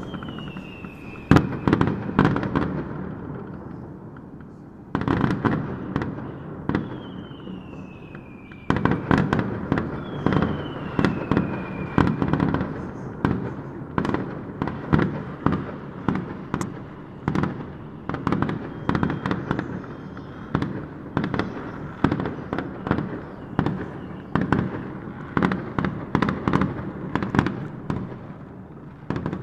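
Fireworks going off: a dense string of bangs and crackles, with three falling whistles in the first half, then a steadier run of bangs about once a second.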